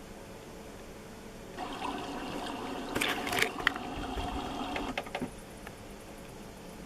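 CD mechanism of an Aiwa CDS-A190 portable player whirring for about four seconds, with a cluster of clicks in the middle, as the disc spins up.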